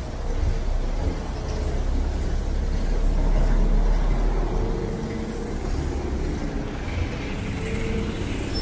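Street traffic: a steady low rumble of vehicle engines running and passing close by.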